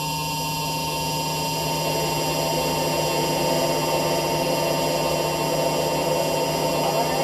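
Electronic noise music: a dense drone of many sustained tones over a buzzing low hum, slowly swelling in loudness over the first few seconds.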